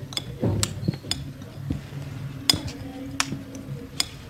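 About half a dozen sharp clinks of tableware, such as cutlery on plates or glass, spaced irregularly, the loudest about two and a half seconds in.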